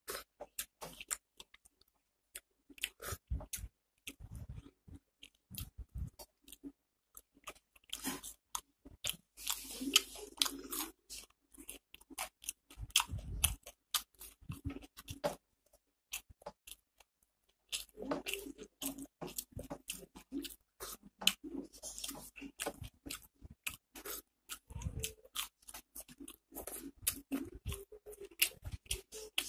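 Close-up chewing and wet mouth smacking of a man eating rice with dal by hand, a dense run of sharp clicks and smacks with a short lull past the middle.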